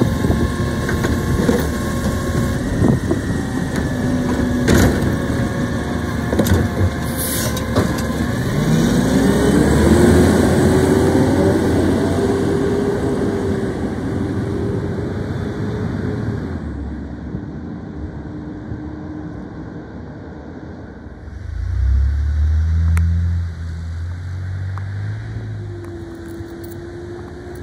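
Natural-gas-powered automated side-loader garbage truck emptying a cart, with a run of clanks and knocks from the lifting arm and cart, then its engine rising in pitch and holding a steady whine as it pulls away. Later it is quieter, with a brief low rumble and a faint steady engine tone from a truck in the distance.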